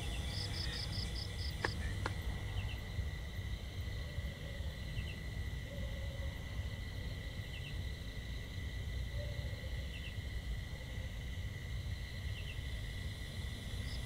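Night insects chirping: a steady high trill, a short pulsed chirp train near the start and again at the end, and a brief double chirp about every two and a half seconds, over a low background rumble.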